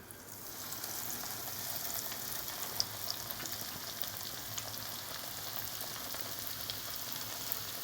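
Breaded chicken schnitzel sizzling as it shallow-fries in hot oil, a steady hiss with scattered small crackles that starts as the piece goes into the pan.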